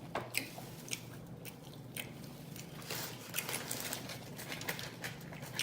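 Close-up sounds of a person biting and chewing food: irregular crunches, wet mouth clicks and crackles.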